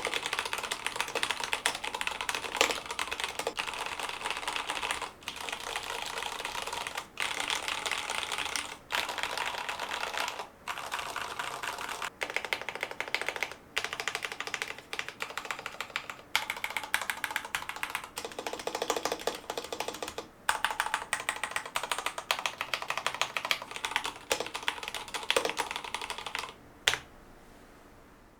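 Fast continuous typing on an IQUNIX L80 mechanical keyboard with Cherry MX Red switches, picked up by an on-camera microphone. The typing comes in runs broken by brief pauses and ends with one louder key strike near the end.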